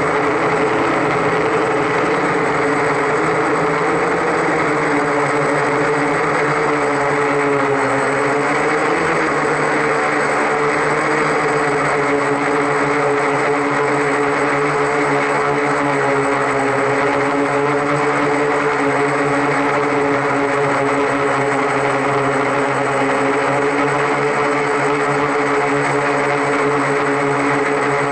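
Octocopter's eight electric motors and propellers running in flight, a steady loud buzz of several pitches that shifts up and down slightly a few seconds in, heard close from a camera on the aircraft.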